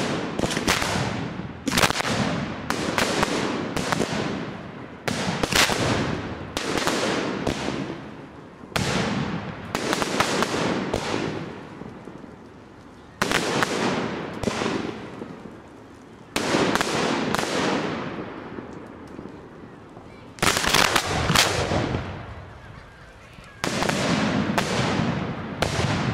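Fireworks display: aerial shells bursting one after another, about a dozen sudden bangs one to three seconds apart, each fading away over a second or two.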